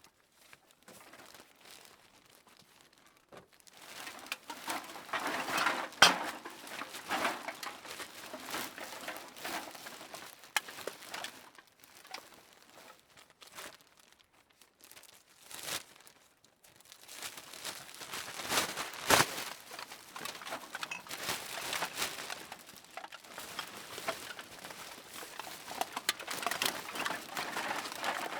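Cans being put into a bag: irregular crinkling of the bag and clinks of the cans, with a couple of sharp knocks and short pauses in between.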